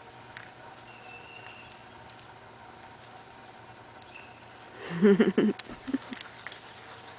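Small dog vocalizing in a quick burst of several short, loud sounds about five seconds in.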